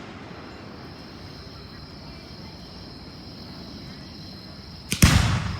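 Steady chirring of crickets. About five seconds in, a firework shell bursts: a short crack, then at once a loud bang that trails off.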